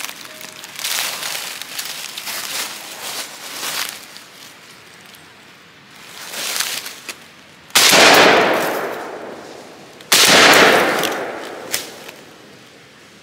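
Two gunshots about two and a half seconds apart, each cracking out sharply and then echoing away over a second or so; softer rustling fills the first few seconds.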